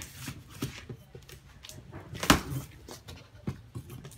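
Cardboard box flaps being pulled open by hand: a series of rustles and short knocks of the cardboard, the loudest a sharp crack about two seconds in.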